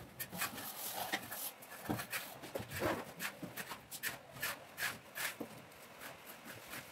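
Irregular scrapes and clicks of plastering tools in wet cement mortar: a long straightedge being worked over a freshly plastered wall, and a trowel scooping mortar into a bucket.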